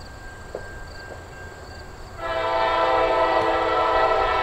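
Diesel locomotive's air horn sounding one long, steady, loud blast, a chord of several tones, starting about two seconds in and still going at the end, as the train approaches a grade crossing.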